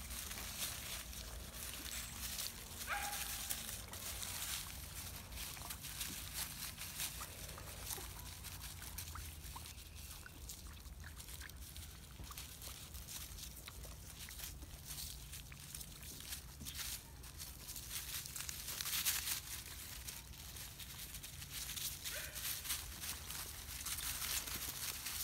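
Siberian husky puppies scuffling and walking over dry leaves and dirt, a steady crackly rustling made of many small clicks, with a short high puppy whimper about three seconds in and a louder rustle about three-quarters of the way through.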